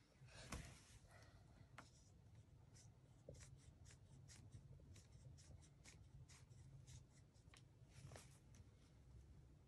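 Faint scratching of a pencil on paper as a child writes numbers in many short strokes, over a low, steady room hum.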